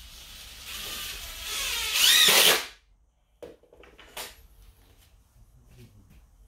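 Yellow cordless drill running into the plywood platform, stepping up in speed and rising in pitch, then stopping suddenly about two and a half seconds in. A few light knocks follow as the tool is set down.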